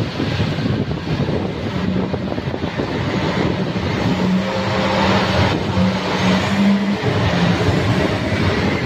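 Caterpillar 773E rigid haul truck's diesel engine droning as the truck drives past on a wet dirt road, its hum growing stronger about halfway through as the truck comes closest. A constant hiss of rain and wind lies over it.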